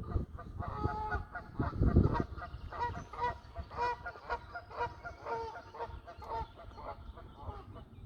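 A flock of birds giving many short, repeated calls that overlap one another, with a low rumble, the loudest moment, about two seconds in.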